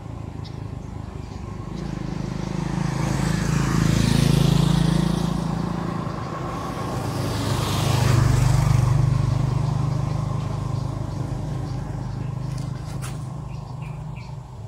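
Motor vehicles driving past on a road, one after another: engine hum and tyre noise swell to a peak about four seconds in, fall back, swell again about eight seconds in, then fade slowly.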